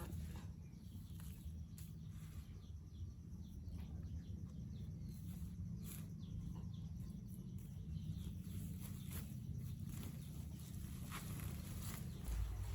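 Faint outdoor ambience: a steady low rumble with scattered clicks and knocks and a few short, faint chirps.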